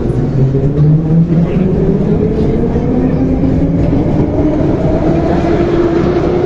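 Type 81-717/714.5A metro train's traction motors whining and rising steadily in pitch as the train accelerates, over a low rumble of wheels on the track.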